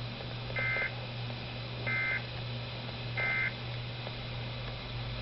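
Three short bursts of the two-tone warbling digital data signal (SAME/EAS code) from a Weatheradio Canada alert broadcast, evenly spaced about a second and a half apart, over a steady low hum.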